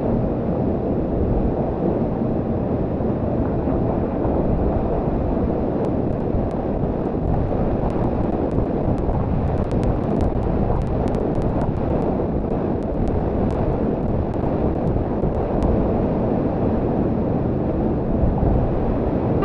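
Waterfall and fast-flowing river water making a loud, steady rushing noise.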